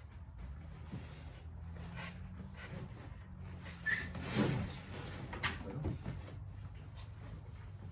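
Scattered knocks, clicks and rustles of hands working a truck seat's foam and cover, with a louder burst of handling noise about four seconds in, over a steady low hum.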